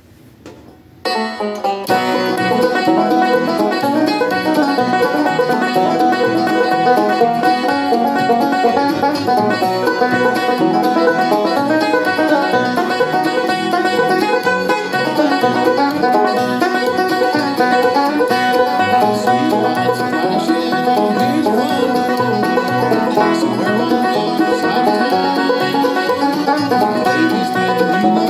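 Solo banjo being played: a few single plucked notes about a second in, then a steady, continuous run of picked notes carrying a tune.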